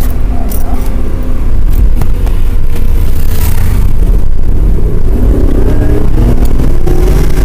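A vehicle under way, with a heavy steady rumble of wind buffeting the microphone and a brief swell of hiss about halfway through; faint engine tones rise in steps in the second half as it accelerates.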